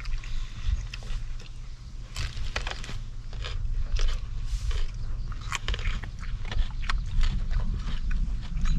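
Popcorn being chewed close by, a run of irregular crunchy bites and chews.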